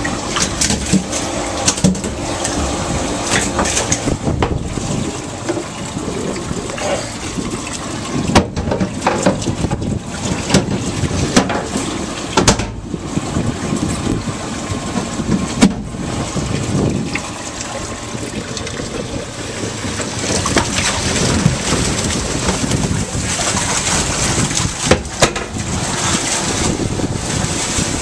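Water running and splashing in a release boat's livewell tank full of bass, with frequent knocks and bumps as the hatch and fish are handled.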